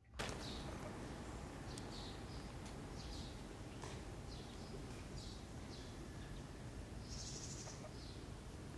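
Outdoor ambience: a steady low background hum with small birds chirping now and then, and a brief high hiss about seven seconds in.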